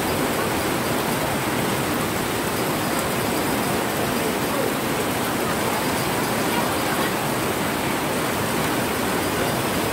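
Steady heavy rain, an even hiss that does not let up.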